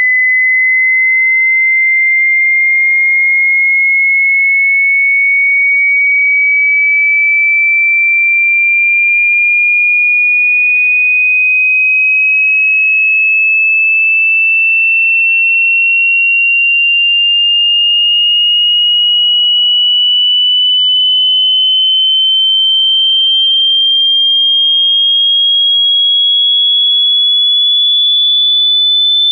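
Electronic pure-tone hearing-test sweep: a single sine tone gliding slowly and evenly upward in pitch, through the upper-middle range from about two thousand to about three and a half thousand hertz, as part of a 20 Hz to 20 kHz sweep across the range of human hearing.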